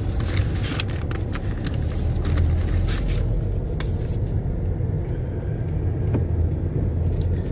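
Steady low rumble inside a car's cabin, with scattered clicks and rustles as a paperback guidebook is picked up and handled.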